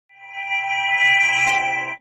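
Short burst of music with held, ringing tones that swells in over the first half second and cuts off suddenly at the end.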